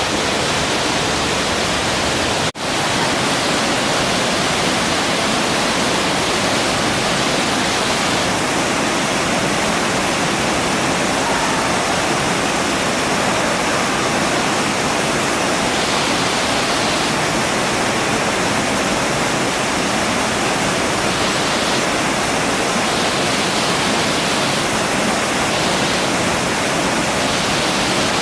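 Loud, steady rush of falling or fast-flowing water, broken once by a very brief dropout about two and a half seconds in.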